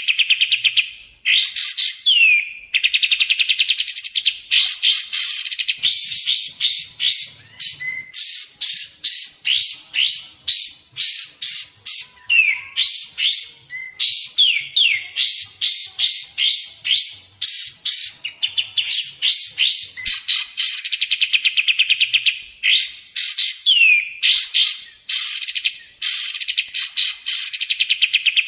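Kapas tembak bulbul song used as a lure recording: long runs of fast repeated notes and rattling trills, broken by short downward-slurred whistles and brief pauses.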